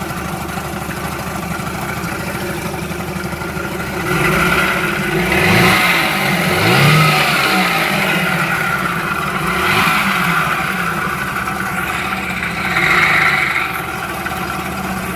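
Suzuki 9.9 hp two-stroke outboard motor idling steadily, then revved up and down several times from about four seconds in before dropping back to idle near the end.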